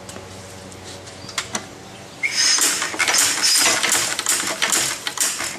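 McCormick-Deering Model M 1.5 hp stationary engine being spun over by hand in a starting attempt that does not catch. There are a couple of clicks, then about two seconds in a fast, loud run of metallic clicking and clattering from the turning flywheels and gear.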